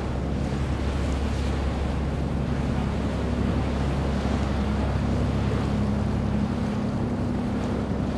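Motorboat engines running steadily with a low hum as boats pass at speed, with the rush of their wakes and wind buffeting the microphone.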